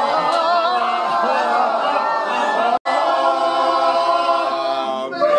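A group of people singing a long, drawn-out "amen" together, their voices wavering at first. The sound breaks off for an instant a little under 3 seconds in, then comes back as one held, steady note.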